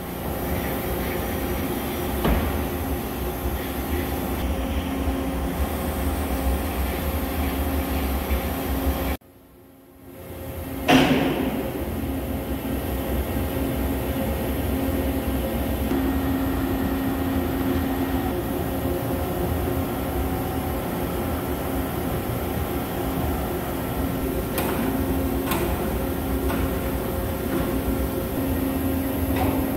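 Steady machine-shop hum of running machinery, with several held tones. It drops out briefly about nine seconds in, and a single sharp metallic knock follows soon after it comes back.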